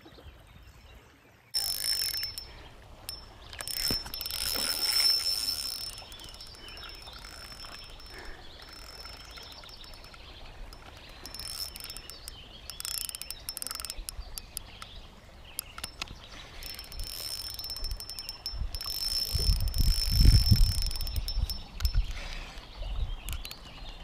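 Spinning reel cranked close to the microphone: a whirring, ticking gear noise with a thin high whine that comes and goes as the handle turns. Low rumbles on the microphone come in near the end.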